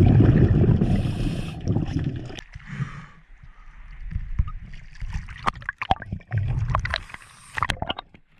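Water rushing and gurgling around an action camera as a diver swims, a loud low rumble for the first two seconds or so. Then splashes, sloshing and sharp clicks as the camera breaks the surface and the arm strokes through the water.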